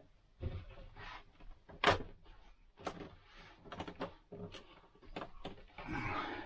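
Handling noises while refitting the plastic ceiling grates of a motorhome's air-conditioner ducting: a scattered series of clicks and knocks, the loudest about two seconds in, with a rustle near the end.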